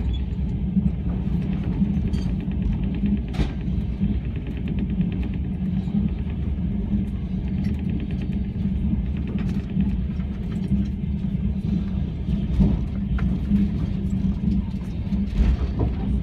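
Train running over a steel railway bridge, heard from inside the carriage: a steady rumble of wheels on the rails with a low hum and a few sharp knocks and clatters.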